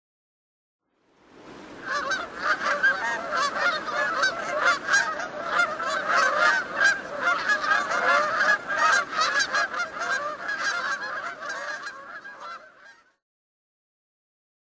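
Canada geese honking: many overlapping honks from several birds, starting about a second in and stopping suddenly about a second and a half before the end.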